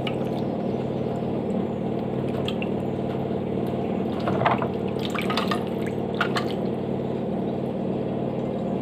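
Water running steadily out of the bottom of a washing machine as it is opened for cleaning, with a few small splashes and knocks around the middle.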